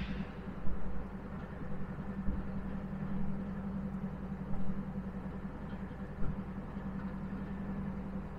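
Diesel locomotive engine idling with a steady low hum, with a few light knocks.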